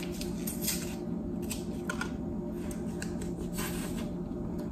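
Intermittent rustling and rubbing as things are handled, over a steady low hum.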